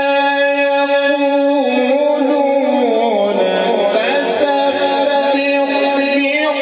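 A man reciting the Quran in the melodic, chanted tilawat style. He holds one long steady note, then about a second and a half in drops in pitch and winds through wavering ornamental turns.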